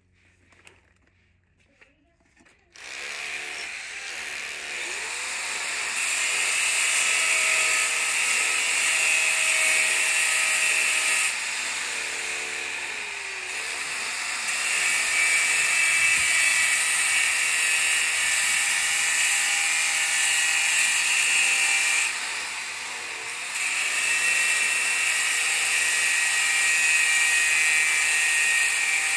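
A power tool running with a steady high whine and hiss, starting about three seconds in and dipping in level twice.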